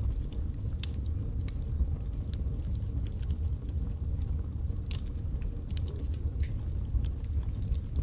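Wood logs burning in a fireplace: irregular sharp crackles and pops over a steady low rumble of the fire, with one louder pop about five seconds in.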